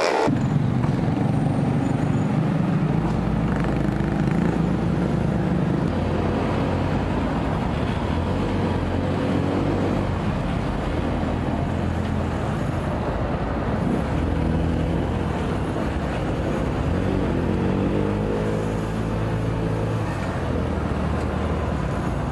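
Motorcycle engine running while riding along a road, with road and wind noise; the engine's pitch rises as it speeds up about three-quarters of the way through.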